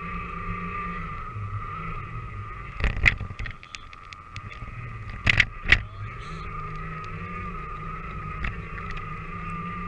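Danchee RidgeRock RC truck's electric motor and gears whining steadily as it drives through snow, heard from a camera mounted on the truck. A couple of sharp knocks about three seconds in and two more around five and a half seconds in come from the truck jolting over bumps.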